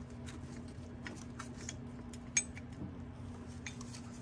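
Light metallic clinks and taps as a modified Honda CR-V steel T-bracket is shifted by hand into position against the subframe and transmission, with one sharper clink about two and a half seconds in.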